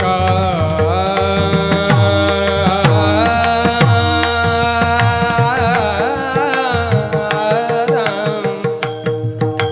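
Varkari kirtan music: a voice holds a long, wordless melodic line that bends in pitch over a steady drone, while a mridang plays strokes with gliding bass notes.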